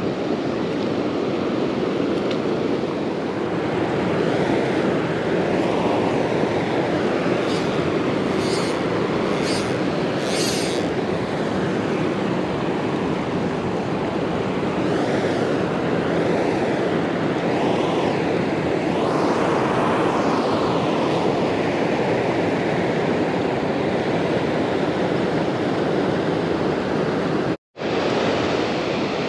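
Fast-flowing dam tailwater rushing steadily and close by, a continuous loud roar of water. It cuts out for a moment near the end.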